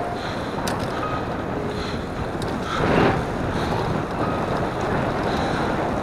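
Wind rushing over the microphone of a moving bicycle, a steady noisy rush that swells briefly about three seconds in.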